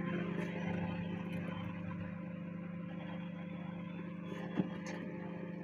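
Kitchen appliance running with a steady hum, with a single short click a little over four and a half seconds in.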